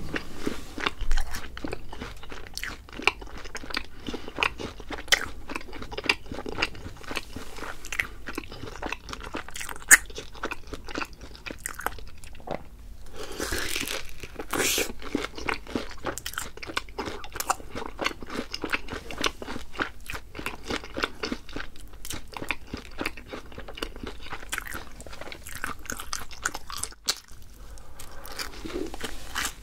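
Close-miked biting and chewing of crispy fried food: dense crunching of a fried coating, with a louder run of crunches about halfway through.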